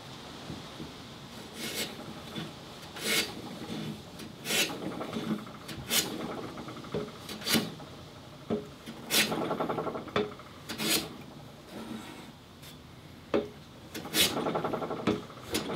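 Metal hand plane taking rasping strokes along a board, about ten strokes at roughly one every second and a half.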